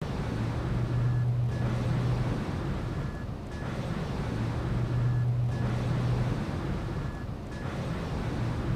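Noisy electronic drone opening an industrial set: a hiss with a low hum that swells and fades in a cycle of about two seconds, with short high beeps repeating in the same cycle.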